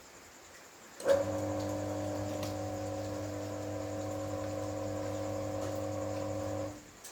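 Mixer-type soybean washing machine's electric motor switched on with a click about a second in, running with a steady hum, then shutting off shortly before the end.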